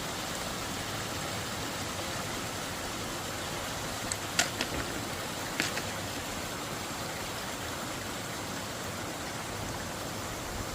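Steady rushing of running water, with a few faint clicks about four and five and a half seconds in.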